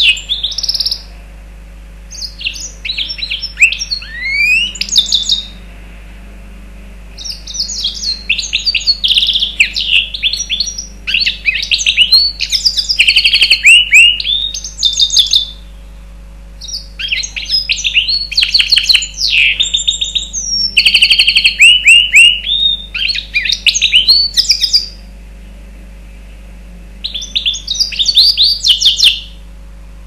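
Mozambique serin × canary hybrid (a mule) singing: long phrases of fast, high chirps, trills and warbles, separated by pauses of a second or two.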